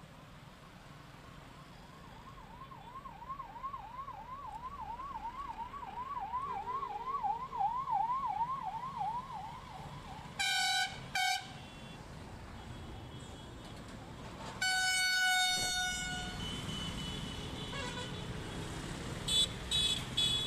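Convoy escort vehicle's electronic siren warbling, rising and falling about three times a second over road traffic noise. Then two short horn blasts, a longer horn blast a few seconds later, and several quick honks near the end.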